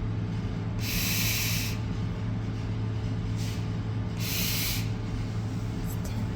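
Two loud hissing bursts of air, one about a second in and lasting nearly a second, a shorter one about four seconds in, and a faint brief one between them, over a steady low hum.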